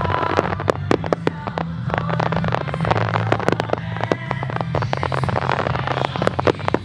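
Fireworks starmine barrage: many shells bursting in quick succession, a dense run of sharp bangs several times a second over a continuous crackle.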